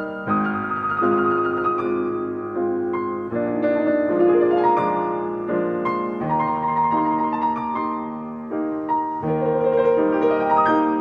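Slow piano music, notes and chords held and changing about once a second.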